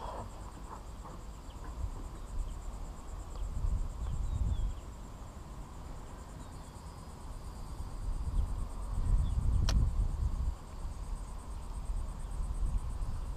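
Steady high-pitched insect trill, with low rumbling gusts of wind on the microphone that are loudest about nine to ten and a half seconds in, and a single sharp click near ten seconds.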